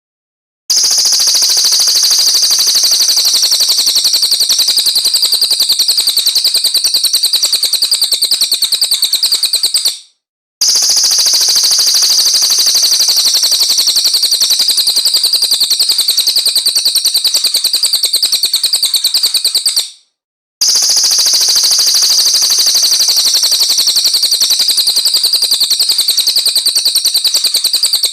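A bird's high-pitched trill of very rapid, even notes, as used for songbird tutoring, played in loud stretches of about ten seconds, three times with short silent gaps between.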